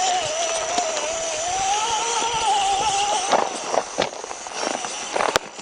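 An RC rock crawler's electric motor whines, its pitch wavering up and down with the throttle, and stops about three seconds in. Scattered short clicks and knocks follow.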